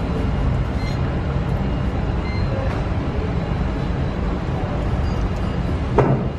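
Steady low background rumble with no voices, of the kind road traffic makes, with a single short sharp click about six seconds in.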